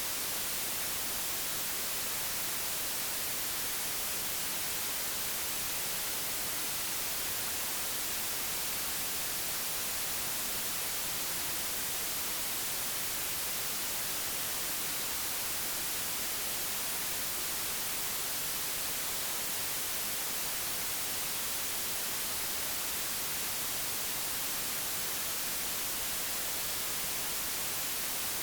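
Steady, even white noise, digitally generated: a constant hiss with no changes, stronger in the high frequencies.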